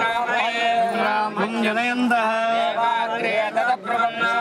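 Male voices chanting Sanskrit Vedic mantras in a steady sing-song, with long held notes.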